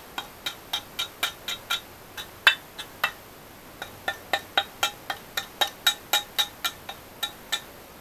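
Steel pick tapping and chipping flaky rust off the cast-iron housing of a Zoeller M53 sump pump: quick ringing metallic clinks, about four a second, that stop for about two seconds in the middle apart from two single strikes.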